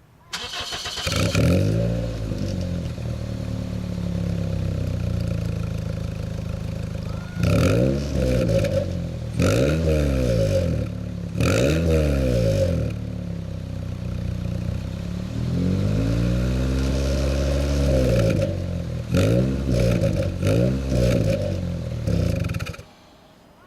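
Toyota Wish engine heard through an exhaust fitted with an inner silencer (muffler insert): it starts up, idles, and is revved several times, with one longer rev and then a quick run of short blips, before being switched off near the end.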